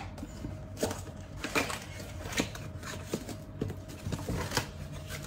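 Cardboard retail box being opened by hand: a string of irregular small knocks, scrapes and rustles as the flaps and inner packing are handled.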